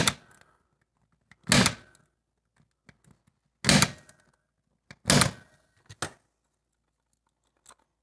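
Spring-loaded impact punch-down tool firing as Cat5e wires are punched down into an RJ45 keystone jack: four sharp snaps a second or two apart, the last one quieter.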